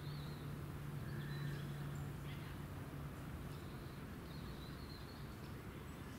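Outdoor ambience: a steady low hum that fades about halfway through, with faint, scattered high bird chirps.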